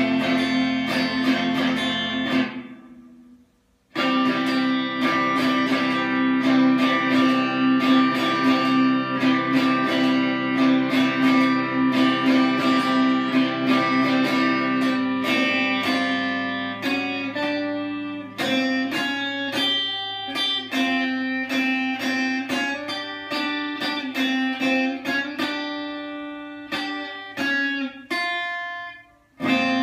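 Electric guitar being strummed. A chord rings and fades away, then after a short pause come sustained strummed chords that turn choppier and more rhythmic about halfway through, with a brief break just before the end.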